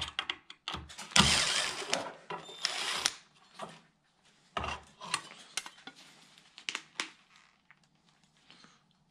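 Hand work with tools and screws on a wooden support: a couple of short rattling, scraping bursts in the first three seconds, then scattered clicks and knocks that die away near the end.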